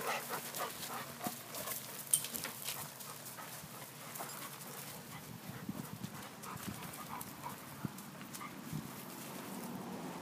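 Footsteps and dog paws scuffling and crunching on wood-chip mulch. The steps come in a quick flurry for the first few seconds, then thin out to occasional light crunches.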